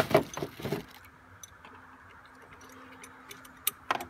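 Small metal hose clamps and hand tools being handled: a quick clatter of clicks in the first second, then sparse light ticks and two sharper clicks near the end.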